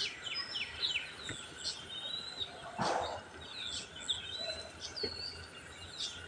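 Small birds chirping repeatedly in short, quick sweeping calls, with a short noise about three seconds in.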